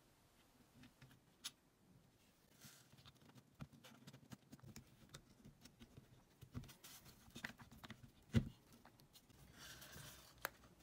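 Makita 6270D drill's motor, gearbox and plastic housing being handled and fitted together: scattered light clicks and plastic knocks, one louder knock about eight seconds in, and a short scrape near the end.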